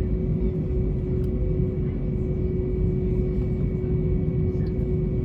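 Airbus A320 cabin noise: a steady low rumble from the jet engines and airflow, with a constant hum running through it.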